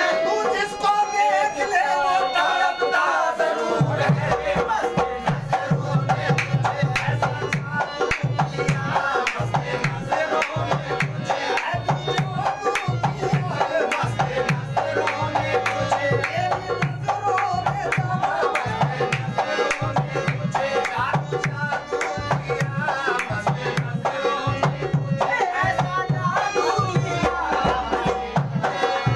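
Qawwali music: harmoniums playing sustained melody while a dholak beats a steady rhythm. The drum comes in about four seconds in.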